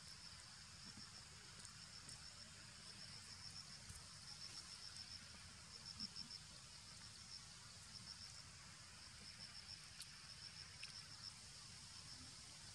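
Faint, steady high-pitched insect trilling that pulses in short runs, the forest's background chorus.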